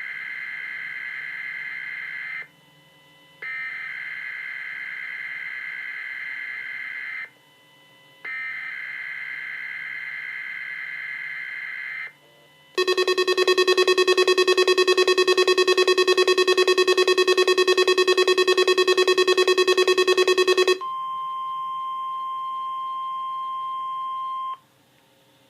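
NOAA Weather Radio Required Weekly Test alert signals played through a radio receiver. First come three bursts of warbling SAME digital header tones, each about two and a half seconds long with a short gap between them. Then a loud, harsh, rapidly pulsing alarm tone sounds for about eight seconds, followed by a quieter steady single tone for about four seconds that cuts off.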